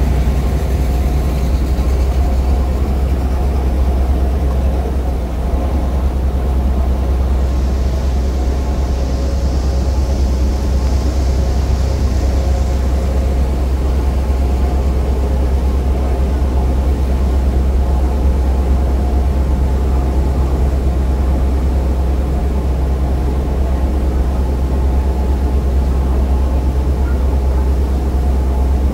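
Passenger ferry's diesel engines running steadily under way, heard on board as a deep, unbroken drone with a steady hum above it.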